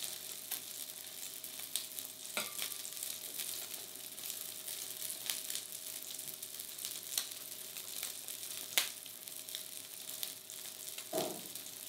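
Sausages and bacon frying in bacon fat in a pan, giving a steady sizzle, with a few soft scrapes and clicks as a block of parmesan is grated over a glass bowl.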